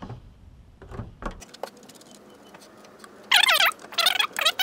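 A few light clicks of cable and terminal hardware, then four short, loud squeaks in quick succession near the end as the lead-acid aircraft battery is gripped and worked loose in its metal battery box.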